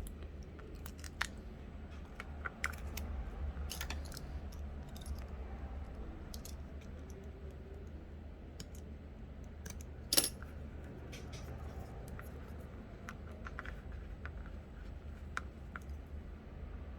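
Light scattered clicks and taps of hands and small tools handling a phone's back cover as adhesive strips are laid along its edges, with one sharper click about ten seconds in. A low steady hum runs underneath.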